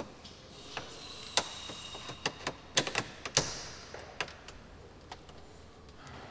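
Irregular sharp clicks and taps from a hand working at the trim of a car's instrument gauge, thickest in the middle, then thinning out to a few single clicks.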